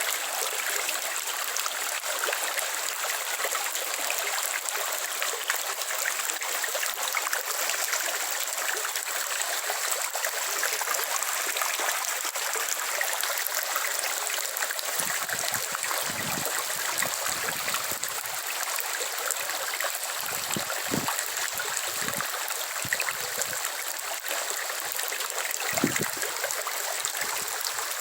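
Rain falling steadily, an even hiss of water, with a few short low thumps in the second half.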